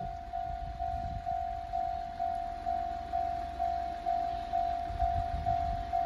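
Electronic level crossing bell of the kind railway fans call the "Tokai sound", ringing a single-pitched ding that repeats about twice a second with each stroke dying away, over a low rumble.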